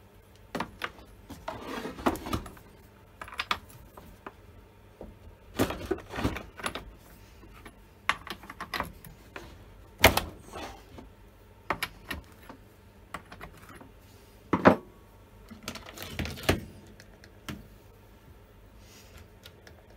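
Irregular metal clicks, knocks and rattles from a spanner working the bar nuts off a Stihl MS170 chainsaw and from the saw being handled. The sharpest knocks come about ten seconds in and again near fifteen seconds.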